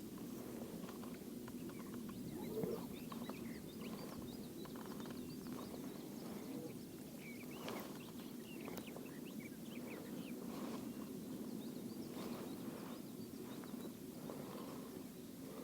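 Faint, scattered short bird chirps over a steady low background rumble by open water.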